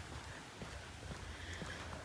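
Faint footsteps of a person walking on a path, with a low wind rumble on the microphone.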